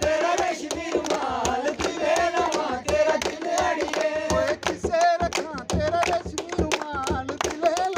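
A man singing a Dogri folk song live, with a drum struck with a stick keeping a quick, steady beat.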